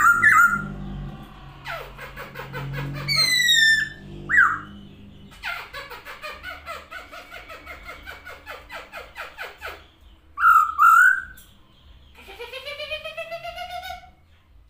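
Hong Kong poksay laughingthrush singing vigorously: a long, varied song of clear whistles and slurred notes, with a fast run of repeated notes in the middle and two loud slurred calls about ten seconds in.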